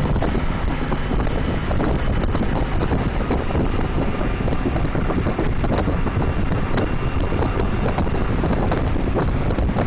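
Wind buffeting the microphone on a moving Honda ST1300 motorcycle, over the steady drone of its V4 engine.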